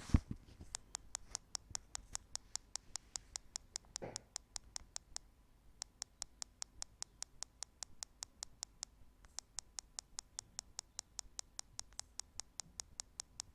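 HTC Nexus 9 tablet's bottom speaker giving a rapid, even train of faint sharp clicks, about six a second, with a brief break about five seconds in. This is the tablet's known speaker fault: a constant click, click, click that is really annoying. A soft knock comes about four seconds in.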